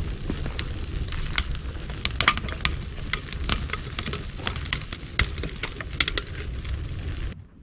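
Open fire burning with irregular sharp crackles over a low steady rumble, cutting off abruptly near the end.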